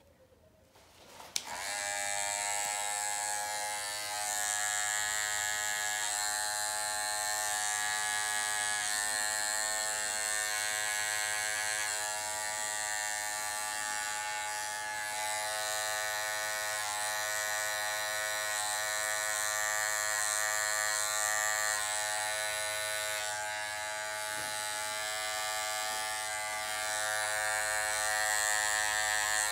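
Electric hair clippers switched on with a click about a second in, then running with a steady buzz while cutting hair.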